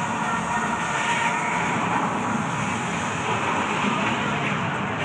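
Loud, steady din filling a large indoor arena: crowd noise mixed with public-address sound, with no distinct events.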